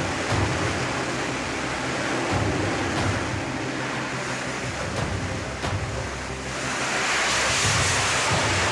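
Jet engine noise from F/A-18 fighters launching by catapult off an aircraft carrier deck: a steady rushing roar that swells louder near the end. Low music runs underneath.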